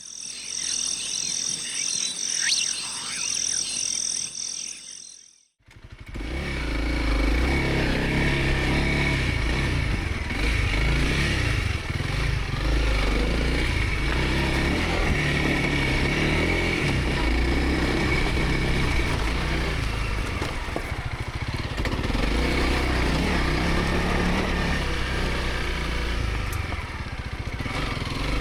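A dual-sport motorcycle being ridden on a dirt trail: its engine running steadily under way with wind noise. Before it, a few seconds of high pulsing tones cut off suddenly about five seconds in.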